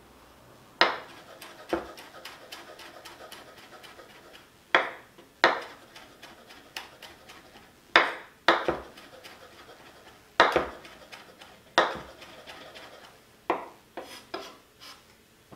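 Chef's knife chopping dill on a wooden cutting board: irregular sharp knocks of the blade on the board, about a dozen loud strikes with lighter taps between.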